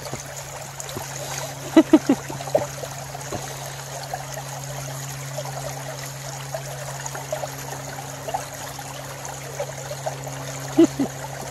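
Shallow, clear creek trickling over stones and gravel, with a few short sharp clicks about two seconds in and again near the end.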